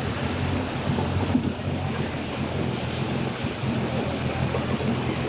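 Steady rush of floodwater with a vehicle engine running under it as a constant low hum.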